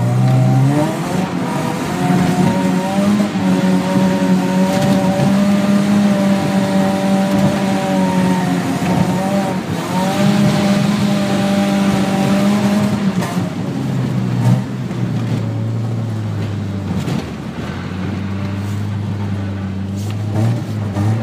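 BMW E36 Compact engine revving hard, heard from inside the cabin: the revs climb in the first couple of seconds, hold high for about ten seconds, then fall back to a lower, steadier pitch.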